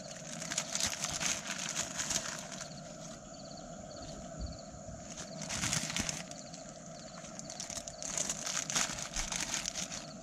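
Plastic instant-noodle packet crinkling as it is handled and torn open, in three bouts of a second or two each.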